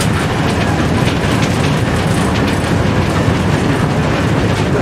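Tram running along the track, heard from inside the driver's cab: a steady rumble of wheels on rails and running gear, with a few faint ticks.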